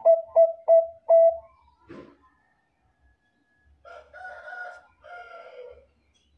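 Zebra dove (Bangkok perkutut) cooing: four short, clipped coos in the first second and a half, then two softer, longer, rougher coos about four and five seconds in.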